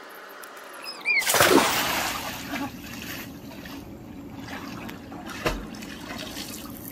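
A person jumping into a swimming pool: one big splash about a second in, then water sloshing and lapping as they swim.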